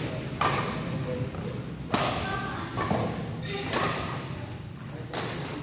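Badminton rally: four sharp racket hits on the shuttlecock, about a second and a half apart, each ringing briefly in a large hall.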